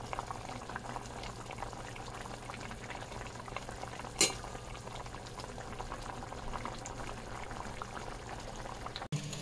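Green-tomato and fish curry bubbling at a simmer in a pot, with many small pops over a steady low hum. A single sharp knock sounds about four seconds in.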